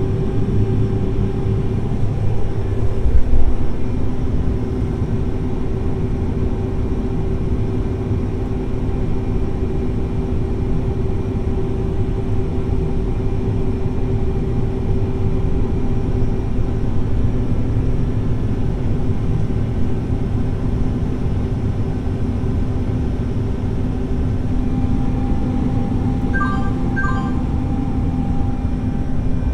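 Heavy farm machine's diesel engine running steadily under load, a continuous drone with a steady hum. Two short electronic beeps sound near the end.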